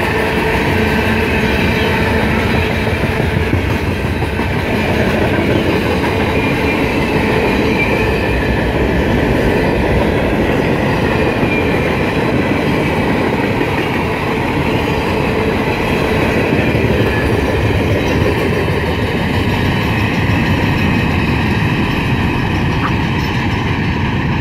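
Freight train cars rolling past at close range: a steady, loud rumble and clatter of steel wheels on the rails.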